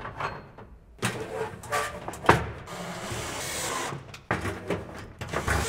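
Cordless drill-driver running in three bursts, driving screws into wood, after a few light metal clinks of spanners going onto pegboard hooks.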